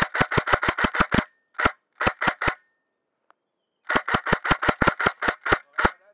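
Airsoft electric gun firing strings of rapid shots, about six or seven a second: a run of about nine, a single shot, three more, then a longer run of about twelve near the end. Each shot is a sharp crack from the gearbox and spring.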